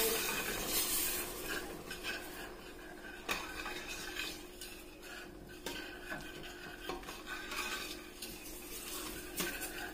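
A utensil stirring in a stainless-steel pot on the stove, knocking and scraping against the pot now and then, over a faint steady hum.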